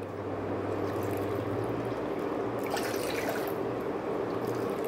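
Water poured from a plastic measuring cup into a steel pot, cupful by cupful, over a steady low hum.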